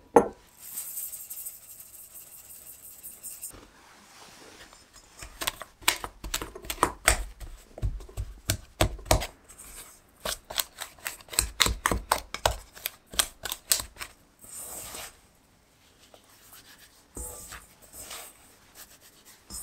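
Flour, sugar, almond flour and matcha sifted through a mesh sieve into a stainless steel bowl with a soft hiss, then a utensil cutting cold butter cubes into the dry mix, with quick irregular clicks and taps against the steel bowl.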